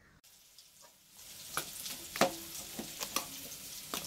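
Near silence for about a second, then a steady sizzle of chicken frying in coconut oil. Over it, a steel spoon scrapes and clinks against a steel bowl of marinated chicken about four times.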